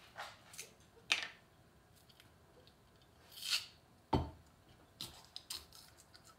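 Plastic cap of a molasses bottle being twisted and worked open: scattered small clicks and snaps, a louder snap about a second in, a short hiss, then a dull thump just past four seconds and a quick flurry of clicks near the end.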